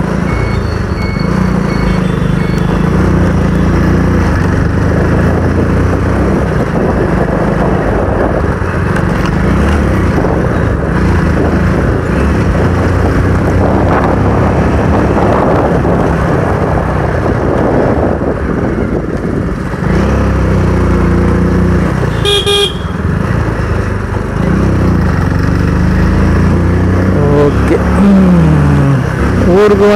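Motorcycle engine running while riding along a town street, with a steady rush of wind and road noise on the handlebar-mounted microphone. A vehicle horn honks once, briefly, about three-quarters of the way through.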